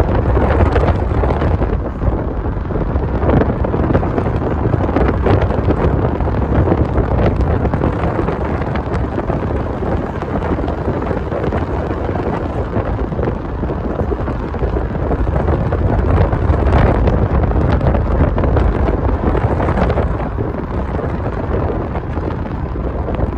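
Wind buffeting the microphone over the road noise of a moving car, in loud, uneven gusts.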